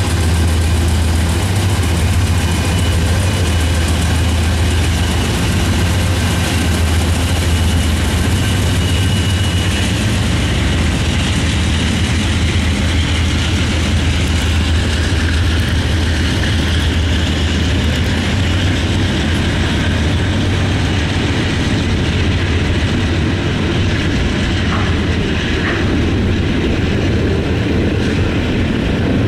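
Norfolk Southern diesel-electric locomotives passing close by, their engines giving a steady deep drone, then the noise of double-stack container cars rolling past on the rails.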